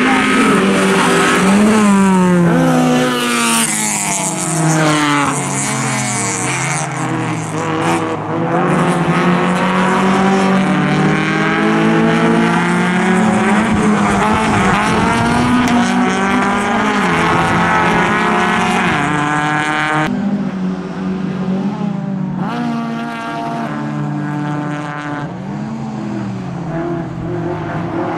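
Rallycross cars racing, several engine notes overlapping as they rev hard, each climbing and dropping in pitch again and again through gear changes. About twenty seconds in the sound turns duller.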